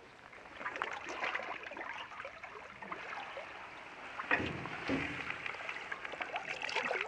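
Moving water trickling and splashing, with scattered small clicks.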